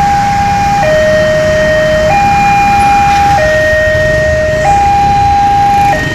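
Electronic two-tone alarm switching back and forth between a higher and a lower note, each held about 1.3 seconds, over a steady low rumble.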